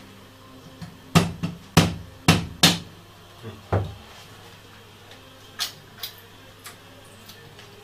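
Small wooden mallet striking a hand tool held against a wooden music box frame: four sharp knocks about half a second apart, then a duller thud as the mallet is set down. A few light clicks follow near the end as small parts are handled.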